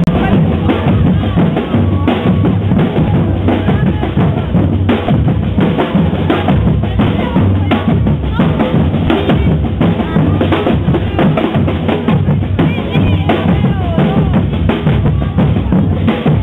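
A group of drummers playing hand drums and snare-style drums together in a busy, unbroken beat, with crowd voices mixed in.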